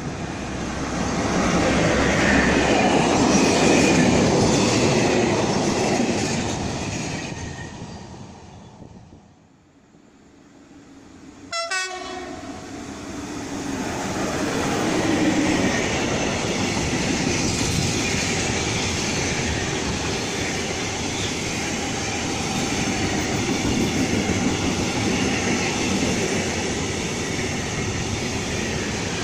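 A train passes and its rolling noise fades away over the first nine seconds or so. After an abrupt break, an SNCF BB 27000 electric freight locomotive hauls a long intermodal train of tank containers past close by, with a steady rolling rumble and wheels clacking over the rail joints.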